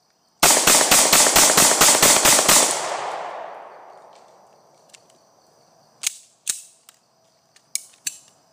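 Ruger P95 9mm pistol fired in a rapid string of about eleven shots, roughly five a second, emptying a factory Ruger magazine in a mag dump, with the echo dying away over the next second. A few sharp clicks follow as the pistol is handled.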